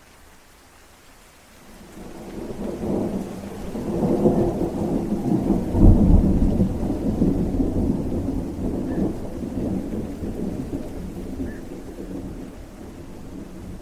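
Rolling thunder over steady rain. The rumble builds about two seconds in, is loudest around the middle, and slowly dies away.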